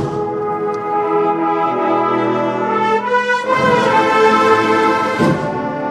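Orchestral background music with brass playing sustained notes.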